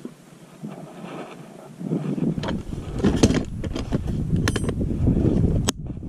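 A plastic geocache box being handled and its lid pressed shut, with several sharp plastic clicks and knocks. From about two seconds in, a loud low rumble on the microphone sits under them.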